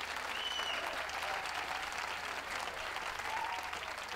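Audience applauding, a steady dense clatter of many hands clapping.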